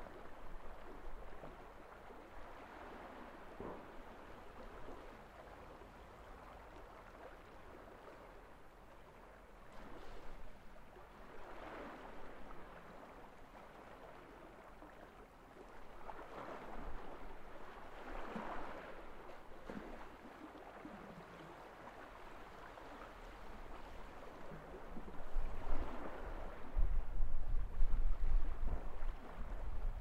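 Sea waves washing onto a gravel beach, swelling and easing every few seconds, with a deeper low rumble as a bigger surge comes in near the end.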